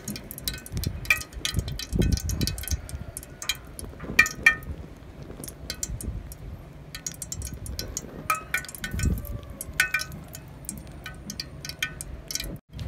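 Metal spoon clinking and scraping against a tin can while scooping out melted candle wax: irregular clusters of bright, ringing metallic clinks.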